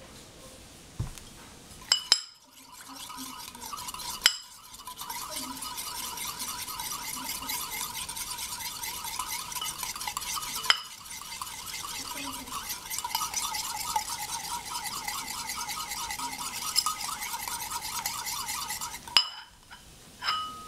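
Wire whisk beating egg yolk, mustard and oil in a bowl to emulsify mayonnaise: a fast, even rattle of the wires against the bowl that pauses briefly twice, with a few sharp taps on the bowl at the start and near the end.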